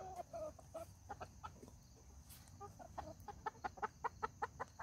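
Hens clucking softly. About three seconds in comes a quick, even run of short, sharp clucks, about six a second.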